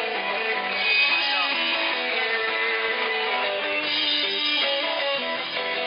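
Live rock band playing a song, led by strummed guitars, with no singing in this stretch.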